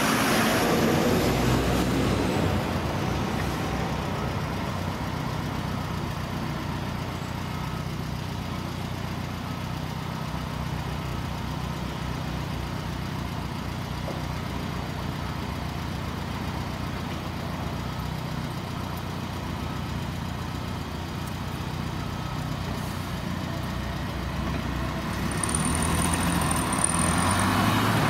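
Street traffic: a Volvo semi-tipper truck passes close by at the start and its engine fades away within a couple of seconds. A steady low diesel engine hum carries on, and another vehicle passes near the end.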